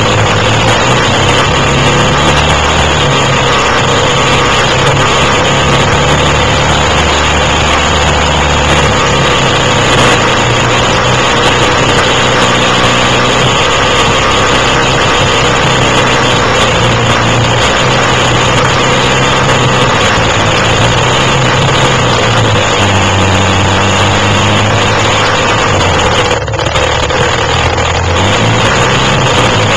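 Quad (ATV) engine running steadily under changing throttle, its pitch stepping up and down, with a brief dip in level near the end.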